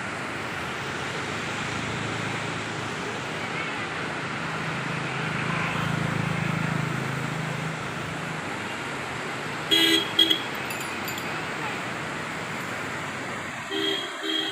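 A vehicle horn sounding two short toots, then two more a few seconds later, over steady road and traffic noise. A vehicle's engine hum rises and falls about halfway through.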